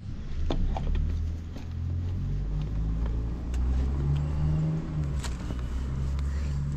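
A low, steady rumble of a running engine, with faint clicks and crinkles of plastic sheeting as a spin-on oil filter is turned on by hand.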